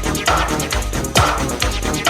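1990s techno music from a DJ mix, with a steady driving electronic drum beat and fast hi-hats.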